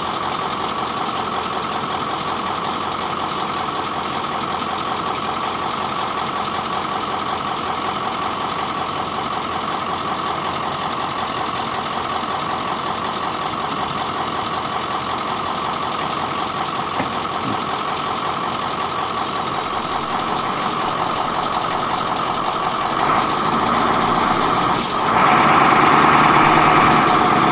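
An engine idling steadily with a fine, even pulse, stepping up in loudness about 23 seconds in and again a couple of seconds later.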